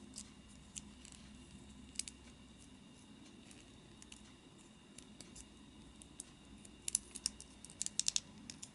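Small, sharp plastic clicks and taps as parts of a plastic model kit are handled and pushed together, a few scattered clicks at first, then a quick run of them near the end.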